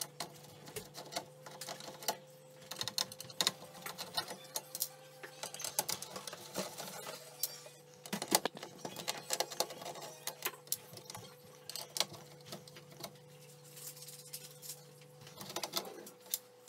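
A screwdriver taking out the screws that hold an LCD TV's power supply board to its sheet-metal chassis: irregular ticks, clicks and metal scrapes. Under them is a low steady hum that stops near the end.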